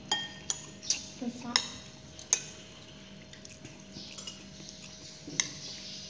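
A spoon clinking and scraping against a ceramic plate of rice and soup: a quick run of sharp, briefly ringing clinks, then one more a little past five seconds in, over a faint steady hum.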